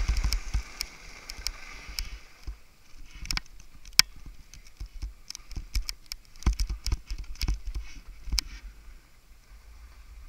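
Skis hissing over snow, dying away about two seconds in, then scattered sharp clicks and low thumps, growing quieter near the end.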